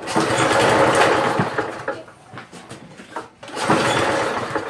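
Pull-start attempts on a Poulan Pro push mower's small engine, rigged to run on fuel vapor instead of its carburetor: the starter rope is pulled twice and the engine turns over without catching. The owner suspects too much air or an air leak somewhere.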